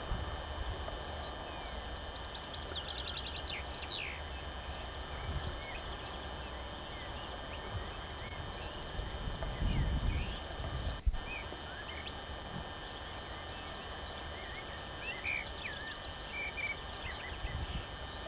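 Small birds chirping and trilling in short scattered calls over a steady outdoor hiss, with low rumbling bursts on the microphone, the strongest about ten seconds in.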